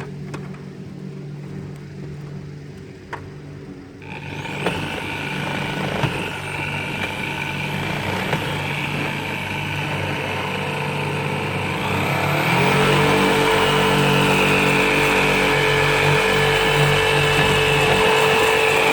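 A motor running steadily, a hum that grows louder about four seconds in and again around twelve seconds in.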